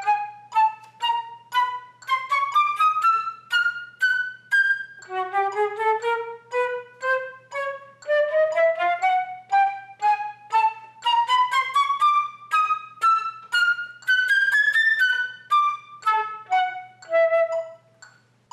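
Solo concert flute playing a chromatic etude passage in short, tongued notes set in a practice rhythm that mixes quick notes with longer ones. The notes climb in small steps, drop back low about five seconds in and climb again, then step down near the end.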